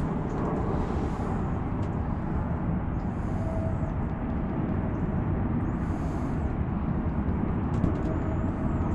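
Strong wind buffeting the microphone: a steady, deep rumble.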